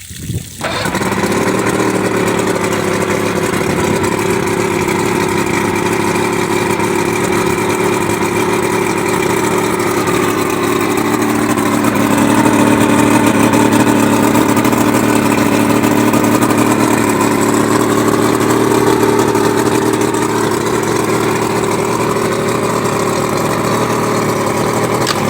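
90 hp Mercury outboard motor starting about half a second in and then running steadily at idle. From around the middle its speed rises a little for several seconds, then settles back to idle.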